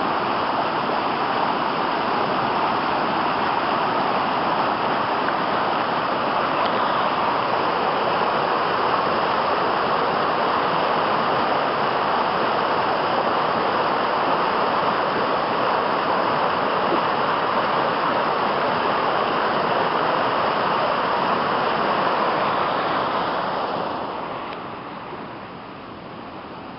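Creek in flood after a heavy downpour, its water rushing steadily. The sound falls away sharply near the end.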